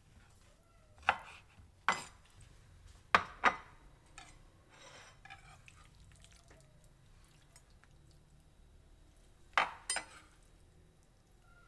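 Knife knocking against a cutting board while cubing raw chicken: a few scattered sharp strikes, with a close pair near the end.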